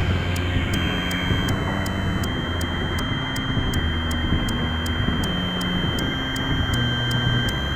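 Improvised electronic noise music from a software synth: a low bass line stepping between notes every half second to a second under a dense wash of distorted noise, with a steady high-pitched whine and a regular tick about three times a second.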